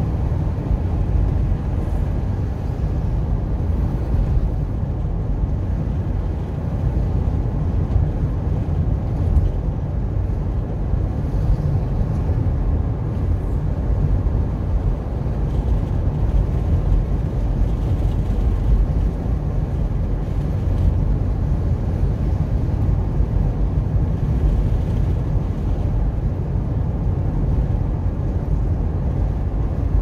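A car driving steadily along a multi-lane road: a continuous low rumble of tyres on asphalt and engine, with no sudden events.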